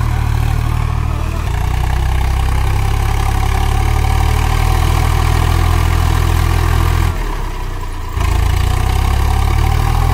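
Tractor diesel engine running steadily. About seven seconds in it eases off for roughly a second, then picks up again.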